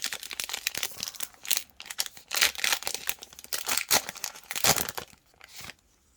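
Plastic wrapper of a trading card pack being torn open and crinkled by hand, a run of crackling rustles that stops near the end.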